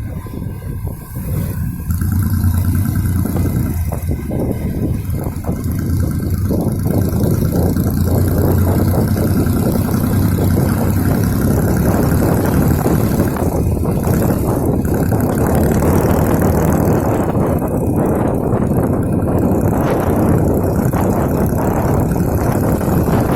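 Car engine fitted in a home-built motorcycle running on the road during a ride, a steady low engine hum under wind and road noise that grows louder about two seconds in.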